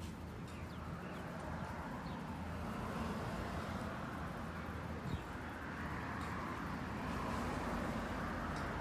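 Outdoor background of steady traffic hum, with a few short bird chirps and one soft bump about five seconds in.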